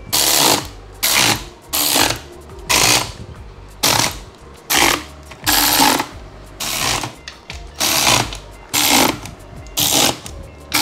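Cordless ratchet running down the transmission case bolts in short repeated bursts, about one a second, a loud mechanical rattle each time.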